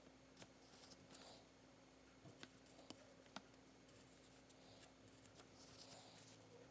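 Faint scratching and scattered small clicks of a plastic scraper on a laptop CPU die, scraping off old thermal paste.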